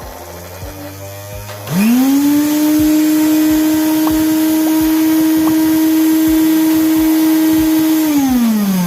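Juicer mixer grinder motor switched on, spinning up within a fraction of a second to a loud, steady high-pitched whine, then cut off near the end and winding down with falling pitch.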